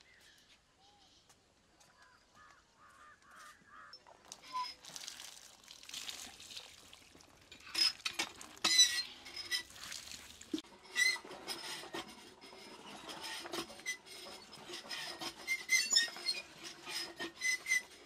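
Water running from a tap, with metal bowls and utensils clinking in sharp knocks from time to time, most of them in the second half.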